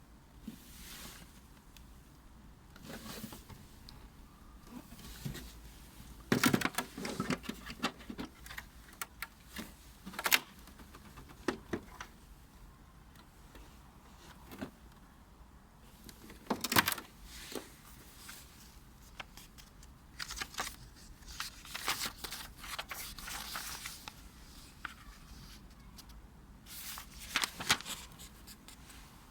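Packaging being handled and opened: rustling and crinkling with irregular sharp clicks and knocks, the loudest about a third of the way in, just past halfway and near the end.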